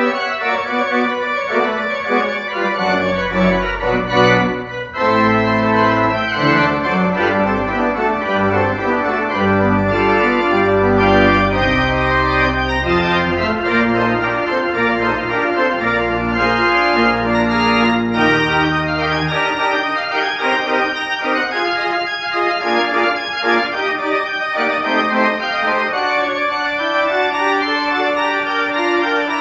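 Church pipe organ playing a piece in sustained chords, with a brief break in the sound about four and a half seconds in. Deep pedal bass notes enter a few seconds in and drop out about two-thirds of the way through, leaving the higher parts to carry on.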